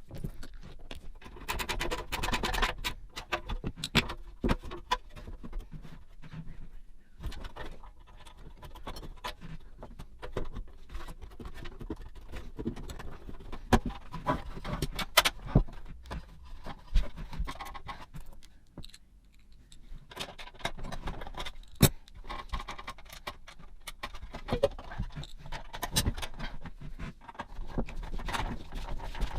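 Metal hand tools clinking and clattering as they are handled and set down: a steady run of irregular clicks and light knocks, with a few sharper strikes.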